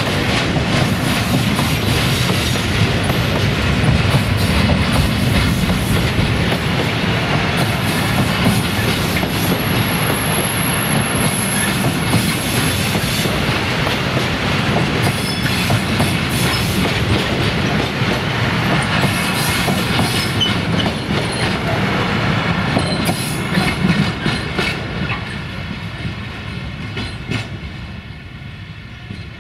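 Freight train wagons rolling past, wheels clattering over rail joints, with a brief high wheel squeal about ten seconds in. The noise fades over the last few seconds as the train moves away.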